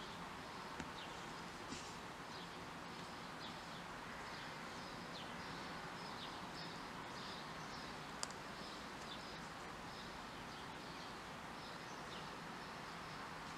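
Small birds chirping over and over with short, high calls over a steady background hiss, with a few sharp clicks, the loudest about eight seconds in.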